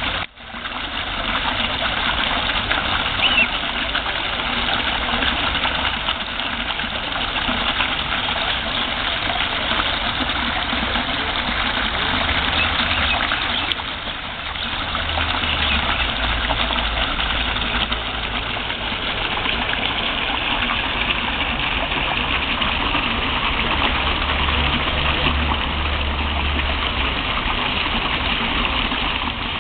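Water jet gushing and splashing steadily into a small garden pond, with a low rumble coming and going in the second half.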